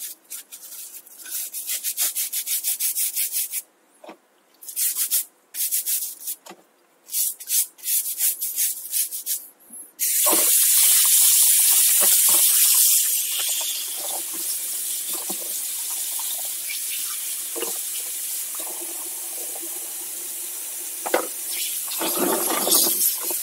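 A brush scrubbing grease off a bike cassette in quick, rapid strokes, with short pauses. About ten seconds in, a tap is turned on and water runs steadily, rinsing off the dishwashing-liquid suds.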